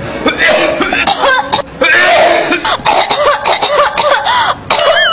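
A person coughing over and over in a continuous fit, harsh hacking coughs following one another with little pause, some with a voiced, strained edge.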